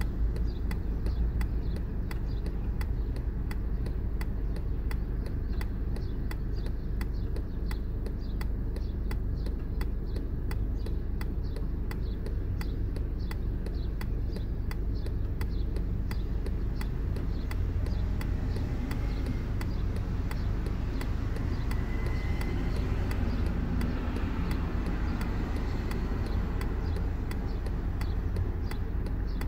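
Car driving, heard from inside the cabin: a steady low rumble of engine and road noise, with a faint, regular ticking about three times a second.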